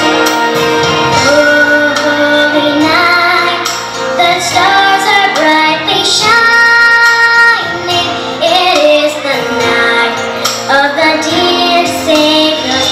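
A song sung by young children's voices in unison over instrumental accompaniment, with long held notes.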